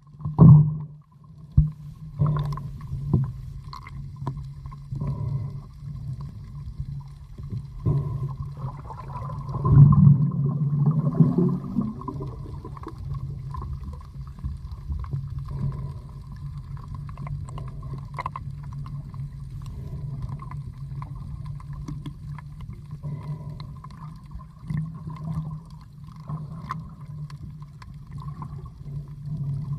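Underwater sound picked up by a camera beneath the surface: a steady low hum with muffled water noise and scattered clicks and knocks, swelling into a louder rush of water about ten seconds in.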